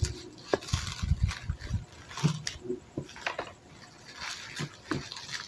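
Clear plastic wrap crackling and rustling as a wrapped jar is handled, with scattered clicks and a few dull thumps about a second in.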